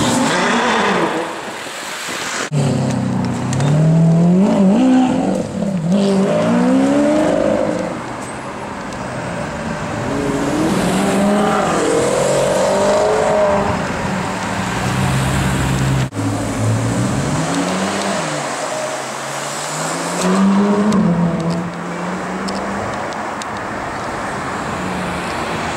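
Supercar engines revving and accelerating hard, their note climbing and dropping through gear changes, in several short clips cut together twice.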